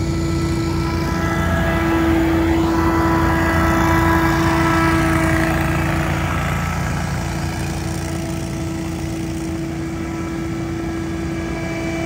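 Scag Windstorm stand-on leaf blower running at high speed: a steady engine drone under a strong, constant fan whine, growing louder as it comes close a couple of seconds in and easing off after about six seconds.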